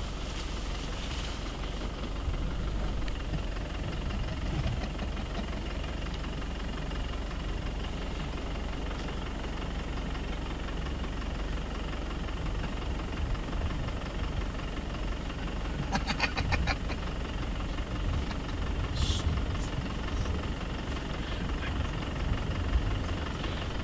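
Car engine idling steadily. About two-thirds of the way through comes a short rattling run of rapid clicks.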